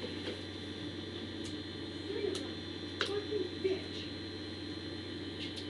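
Light handling noise and a few soft clicks as small items are taken out of a cardboard shipping box and turned over in the hands, over a steady electrical hum.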